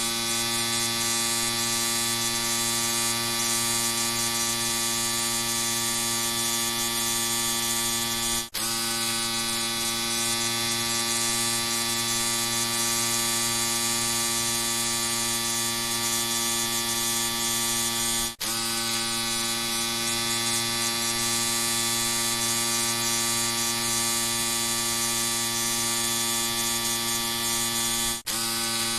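Electric shaver running with a steady, even buzz. It drops out for an instant three times, about every ten seconds.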